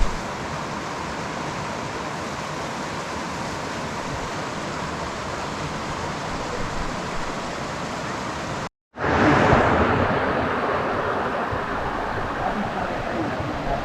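Waterfall's rushing water, a steady, even roar. It breaks off for an instant about nine seconds in and comes back louder.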